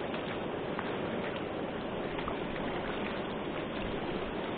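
Turbulent river water rushing over a ledge: a steady, even rush of water.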